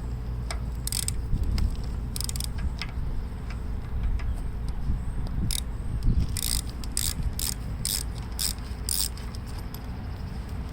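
Ratchet wrench with a 1/2-inch socket clicking in short bursts as it works loose the battery cable nut on the starter of a Gravely tractor. Two separate swings come early, then a quicker run of about six swings in the second half.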